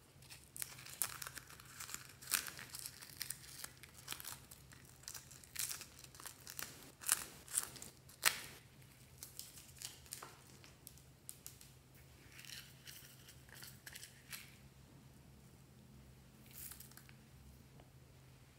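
A small rose-shaped hard plastic container being opened and handled: a dense run of sharp plastic clicks and crackles in the first half, thinning to scattered clicks and a few short squeaks later. A faint steady low hum runs underneath.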